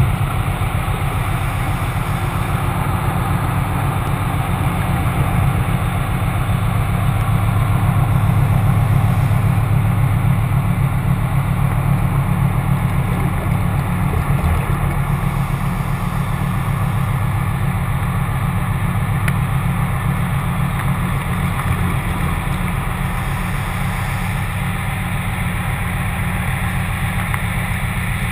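Steady low hum of a ship's machinery heard underwater beside the hull, with a constant hiss above it.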